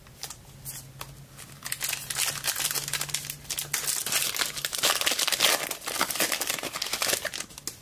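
Trading card pack wrapper being torn open and crinkled. There is a dense run of sharp crackles from about a second and a half in until near the end.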